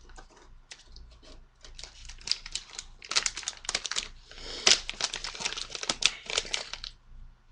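Small Phillips screwdriver working tiny screws out of an iPod's headphone jack assembly: quick dry clicks, scrapes and crinkles of the metal and the parts being handled. The clicking is sparse at first, grows busy about three seconds in, and stops just before the end.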